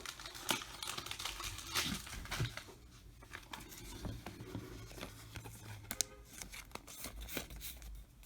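A trading-card pack's wrapper being torn open and crinkled by hand, a quiet run of irregular crackles and small tearing sounds.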